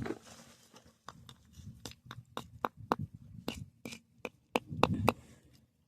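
Stones clicking and knocking against each other as rocks are handled and sorted in a gravelly creek bed: a dozen or so sharp, irregular taps.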